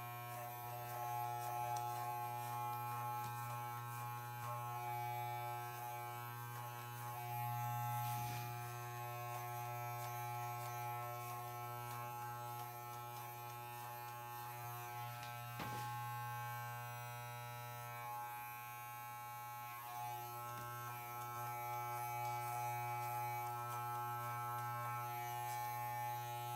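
Corded Wahl hair clippers running with a steady electric buzz as they are worked up the back of the neck to fade the neckline, the blade set to its long position with the taper lever.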